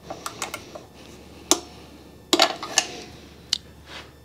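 Click-type torque wrench and hand tools on the up-pipe bolts: about ten scattered, sharp metallic clicks and clinks. The loudest come about a second and a half in and a little past two seconds in. The wrench's click marks each bolt reaching its set torque.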